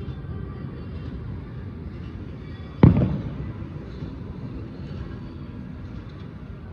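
A firework shell bursting with one sharp, loud bang about three seconds in, its boom echoing away over a second or so, above a steady low rumble.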